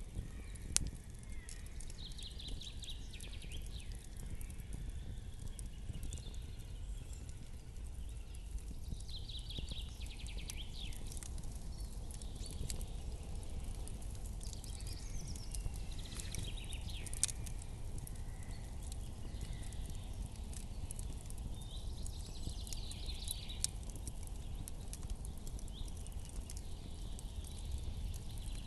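Campfire crackling, with a few sharp pops, over a low steady rumble. A higher chirring sound comes and goes every five or six seconds.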